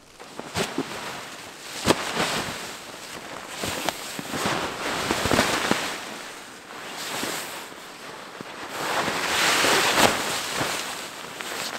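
Wind gusting in waves of rushing noise, with a scatter of sharp snaps and cracks throughout.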